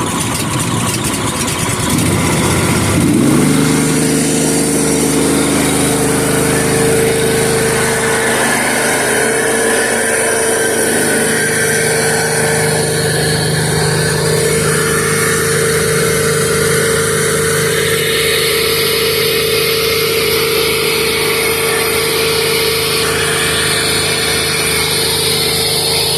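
Gas engine of a pressure-washer rig running, rising in pitch as it comes up to speed about three seconds in, then running steadily at speed.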